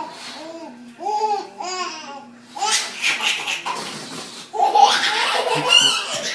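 Baby laughing in runs of short, pitched "ha" syllables. The laughter grows louder about two-thirds of the way through.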